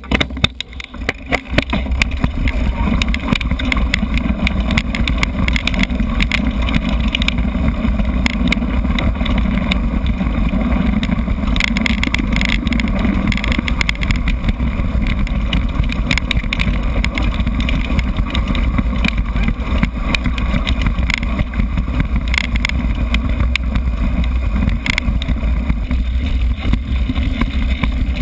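Mountain bike ridden fast over a rough dirt trail, recorded on a GoPro: steady wind rumble on the microphone with constant rattling and knocks from the bike and camera mount over bumps.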